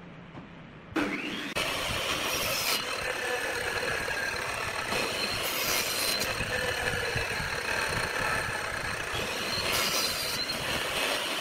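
Hitachi miter saw starting up with a rising whine about a second in, then running steadily at speed, with three brief harsher stretches as the blade cuts small pieces of wood.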